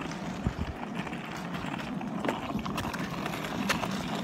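Skateboard wheels rolling on a concrete sidewalk: a steady rolling rumble with scattered sharp clacks.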